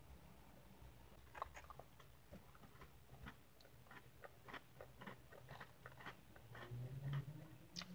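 Faint close-up chewing of Oreo cookies with whipped cream: a run of soft, irregular crunchy and wet mouth clicks, several a second.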